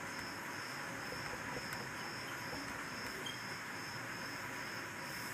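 High-pitched insect chirring, a steady, evenly pulsing trill over faint hiss.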